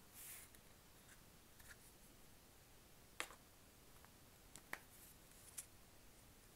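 Faint handling of yarn skeins in their paper label bands: a soft rustle near the start, then a few light, sharp taps and clicks against a near-silent room.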